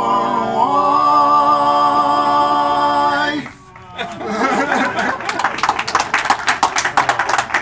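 Barbershop quartet of four men's voices singing a cappella, holding the song's final chord until it cuts off about three and a half seconds in. After a short pause, hand clapping starts.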